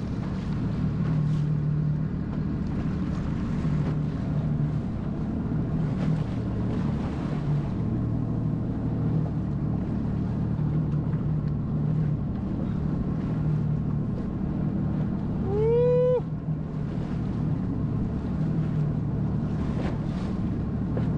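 A jet ski engine runs steadily at low speed with wind and water noise on the microphone. About three-quarters of the way through, a brief pitched sound rises then falls.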